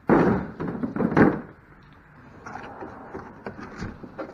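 Plastic chicken coop panels being handled in a cardboard box: a loud clatter of knocks and cardboard rustling in the first second or so, then quieter scattered clicks and scraping.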